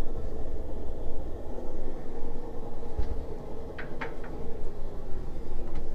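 Steady low hum and rumble, like running machinery or ventilation, with a few faint short squeaks about four seconds in and again near the end.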